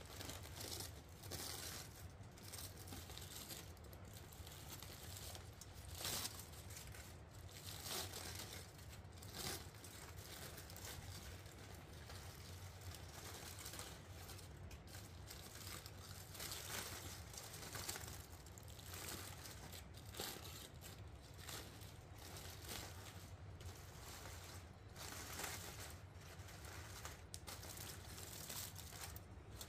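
Aluminium foil crinkling and rustling in irregular bursts as it is peeled open and pushed back by hand.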